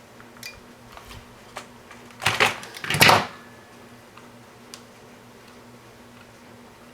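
Handling noise from hands working on the robot's wiring: a few light clicks, then two louder scratchy rustles about two and three seconds in.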